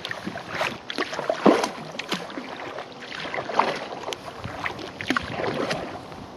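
Kayak paddle blades dipping into and pulling through lake water, an irregular run of splashes and drips with each stroke, the loudest about a second and a half in.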